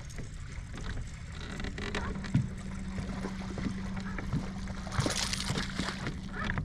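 Sounds of a fishing boat on the water: a steady low rumble with a steady hum that starts about two seconds in, a few small knocks, and a short burst of splashing about five seconds in.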